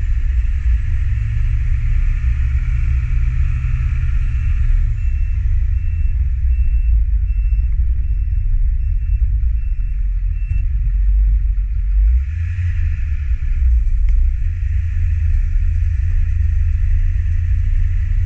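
Dump truck driving slowly, its engine and road rumble loud and heavy on a microphone mounted on the truck's side. An evenly repeating high beep sounds for about the first ten seconds, then stops.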